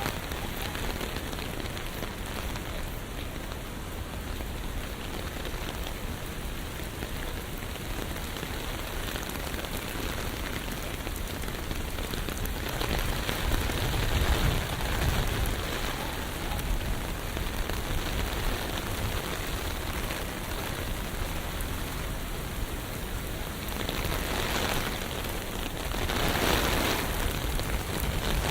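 Steady rain falling on a city street, a continuous hiss of rain. The noise swells twice, about halfway through and again near the end.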